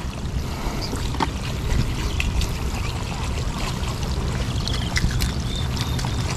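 Shallow seawater trickling and sloshing over a steady low rumble, with scattered small clicks.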